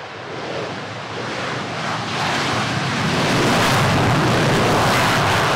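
Twin-engine Super Hornet-type fighter jet taking off, its jet engines at full power. The roar grows louder over about three seconds as the jet rolls down the runway and lifts off, then holds loud and steady.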